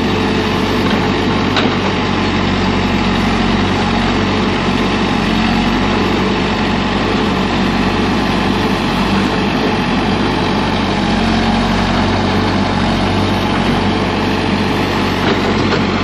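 Hidromek HMK 102B backhoe loader's diesel engine running steadily as its backhoe arm digs soil.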